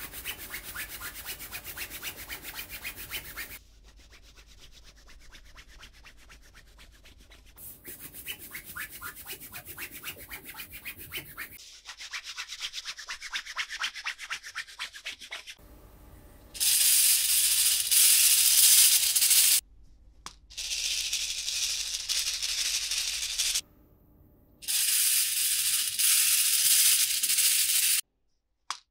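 Rubbing and scratching in fast, fine strokes, heard as a run of short takes joined by abrupt cuts. The last three takes, from about halfway, are much louder and hissier.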